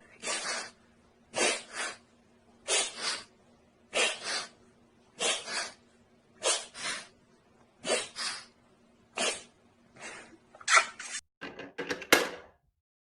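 A bird making short breathy hissing or sneeze-like sounds in pairs, repeating about every 1.3 seconds, then a quicker jumbled flurry near the end, over a faint steady hum.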